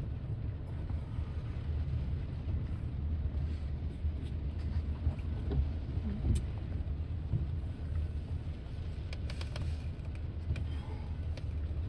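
A slow-moving BNSF grain train rolling past, making a steady low rumble, with a few sharp clicks from the wheels on the rails about two-thirds of the way through.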